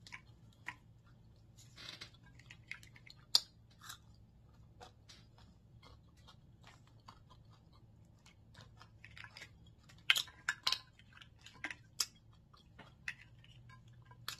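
Boiled crab-leg shells cracked and snapped apart by hand, with close-up chewing between. The cracks come irregularly, the sharpest one a little over three seconds in and a cluster of them around ten to eleven seconds.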